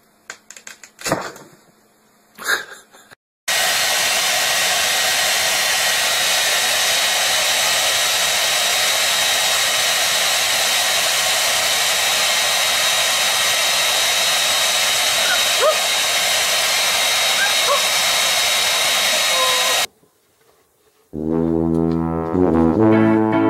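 A loud, steady rushing noise of blown air, like a hair dryer, begins a few seconds in and cuts off suddenly after about sixteen seconds. Guitar music starts near the end.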